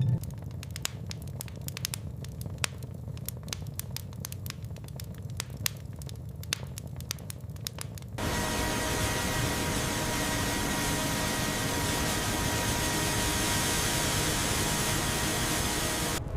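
Irregular crackling and clicking over a low rumble. About halfway through it switches abruptly to a steady, louder hiss, which stops suddenly just before the end.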